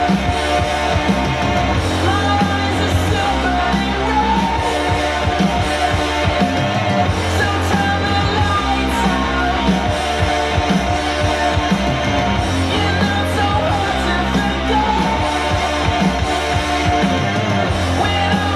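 A rock song with singing, guitar and sustained bass notes, played from a vinyl record on a Pro-Ject Essential III turntable.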